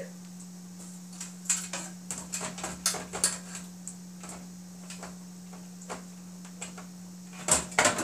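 Irregular knocks and clatter of a fire alarm control panel's black inner cover being handled and fitted into its cabinet, loudest near the end, over a steady low hum from the panel.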